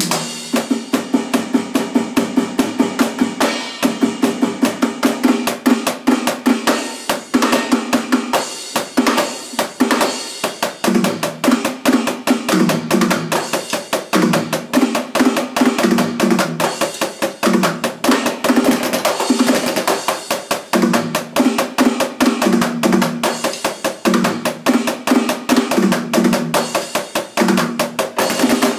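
Fast, dense drumming on an electronic drum kit played along to a recorded metalcore song, with heavy kick and snare hits over a low, chugging guitar riff; the riff changes to a new repeating figure about ten seconds in.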